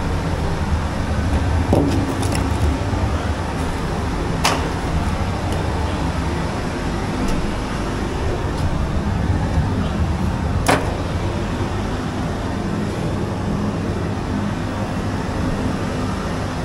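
A steady low machine rumble, with two sharp knocks, one about four seconds in and another about ten seconds in.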